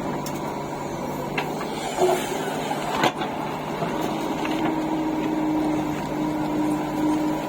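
Diesel engine of the backhoe loader or tractor running steadily during mud loading, with one sharp knock about three seconds in and a steady higher whine joining from about four seconds in.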